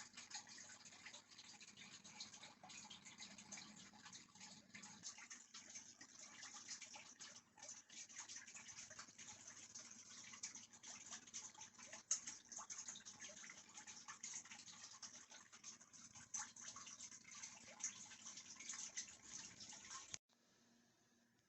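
Faint, continuous crinkling and scratching of packaging being handled during an unboxing, with many small clicks scattered through it. It cuts off suddenly near the end.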